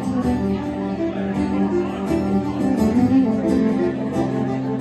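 Fiddle and acoustic guitar playing a tune together: bowed melody over strummed guitar chords.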